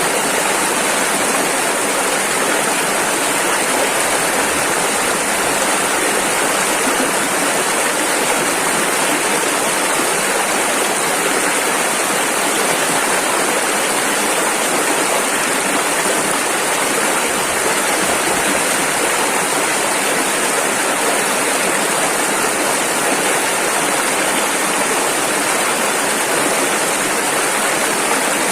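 Rushing river water flowing steadily over rapids, an even, unbroken rush.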